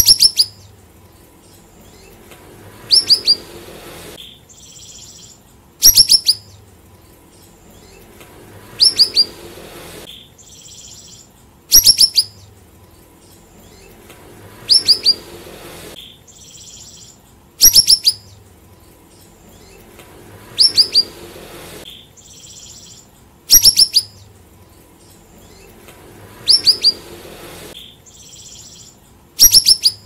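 Siri-siri songbird singing: short phrases of three or four quick, sharply falling high whistles, repeated about every three seconds, with a fainter high call between phrases.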